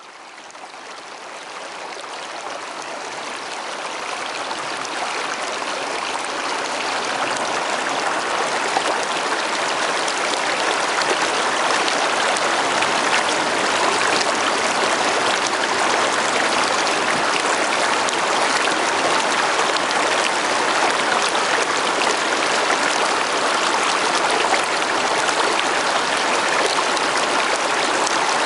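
Shallow stream water running over rocks, a steady rushing and trickling that fades in over the first several seconds and then holds even.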